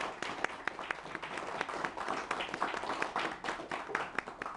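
A small audience clapping, with dense, overlapping hand claps that thin out near the end.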